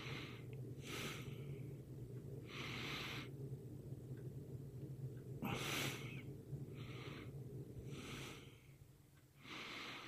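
Heavy breathing close to the microphone: about seven short, hissy breaths through the nose spaced a second or so apart, over a low steady hum that stops near the end.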